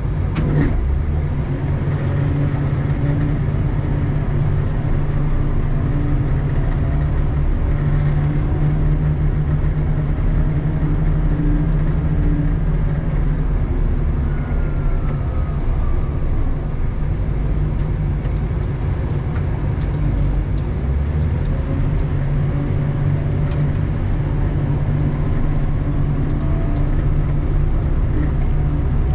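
Doosan DL250 wheel loader's diesel engine running under work, heard from inside the cab, its pitch drifting up and down as it pushes snow with the plow. A short clunk comes about half a second in.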